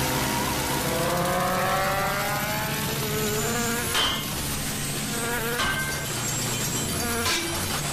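Cartoon insect wings buzzing like racing engines as an animated ladybug and fly speed along, the pitch rising steadily over the first few seconds as they accelerate. Short sharp swishes come about four seconds in and again near the end.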